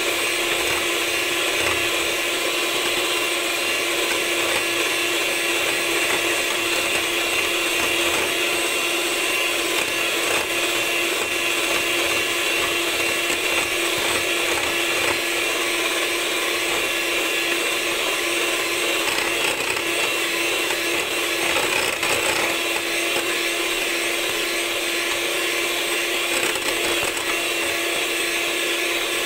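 Electric mixer running steadily at one speed, its beaters whipping heavy cream that has thickened and doubled in volume. A constant motor hum with one strong low tone.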